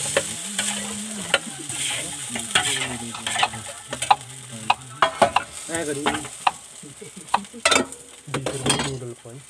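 Chow mein noodles sizzling in oil in a large iron wok while a metal slotted ladle scrapes and clinks against the wok and a steel bowl. The clinks come irregularly throughout, the loudest a little before the end.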